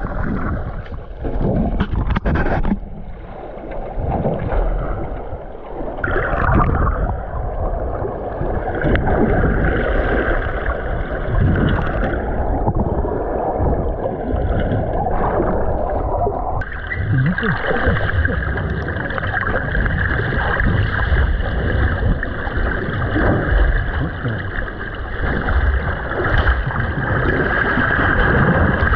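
Underwater sound picked up by a camera in its waterproof housing: a continuous rush of moving water and low rumble. About halfway through, a steady drone sets in and holds to the end.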